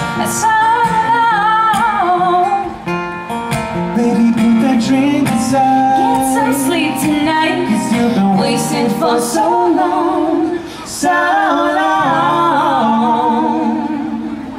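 A woman singing in long, wavering lines over an acoustic guitar, as a live duo plays the end of a folk-pop song.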